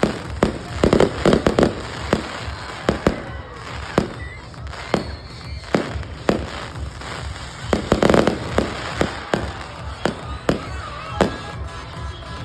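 Fireworks display: a rapid series of sharp bangs and cracks from aerial shells, with dense salvos about a second in and again around eight seconds.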